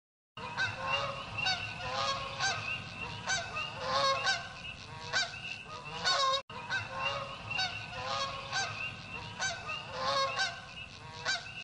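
A flock of geese honking, with many overlapping calls repeating throughout. The calls drop out for an instant about six seconds in.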